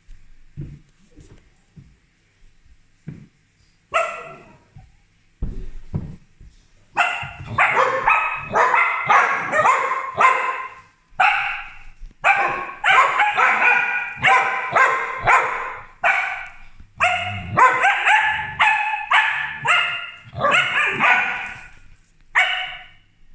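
Corgis barking. There is a single bark about four seconds in, then a fast, near-continuous volley of sharp, high barks from about seven seconds on, with short breaks.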